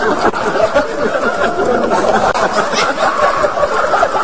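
A group of people laughing hard together, with overlapping voices and chatter.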